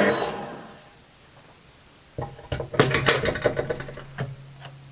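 RAWMID Modern planetary stand mixer's motor winding down and stopping, with a short beep as it stops. About two seconds in come a run of clicks and metallic clanks as the tilt head is raised and the wire whisk is lifted out of the stainless steel bowl.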